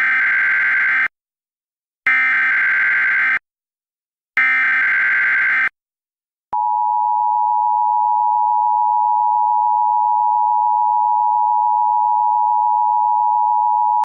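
Emergency Alert System header: three separate bursts of SAME digital data tones, each a little over a second long, then, about six and a half seconds in, the steady two-tone EAS attention signal that holds to the end.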